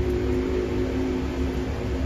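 Steady low hum of a running motor, with a rumble underneath and no breaks.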